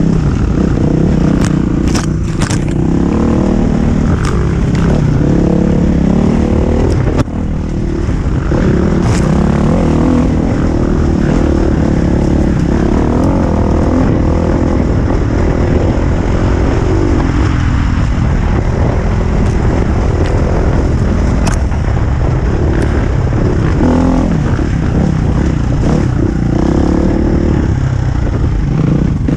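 Husqvarna FE350 enduro motorcycle's single-cylinder four-stroke engine running under shifting throttle, its note rising and falling as it climbs a rough trail. A few sharp knocks and clatter come from the bike going over rocks.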